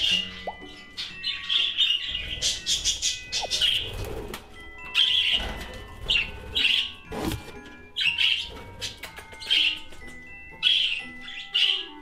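Budgerigars chirping, with repeated short chirps every half second or so, over background music with steady held notes.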